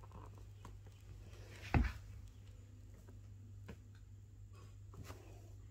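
Quiet handling of a cardboard tissue box, with one dull thump about two seconds in and a few faint clicks, over a steady low hum.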